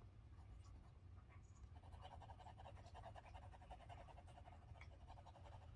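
Faint scratching of a Derwent Drawing Pencil shading on drawing paper in quick back-and-forth strokes, starting about two seconds in.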